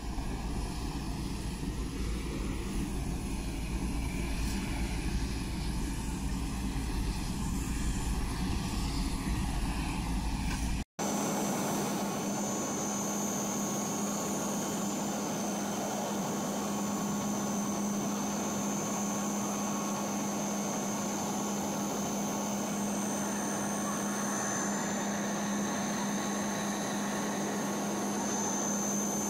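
Steady drone of a turboprop transport aircraft in flight, heard from inside the cabin: a constant propeller hum with a thin high whine. Before that, low rumbling noise that cuts off abruptly about eleven seconds in.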